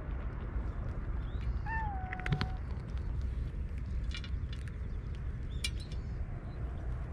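A cat meows once, briefly, about two seconds in, over a steady low rumble, with a few faint bird chirps.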